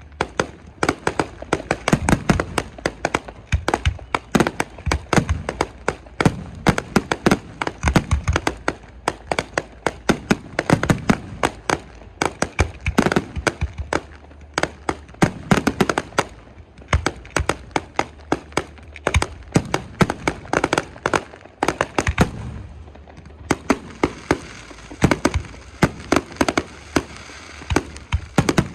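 Fireworks going off: a dense, continuous run of sharp bangs and crackles, many bursts coming in quick succession.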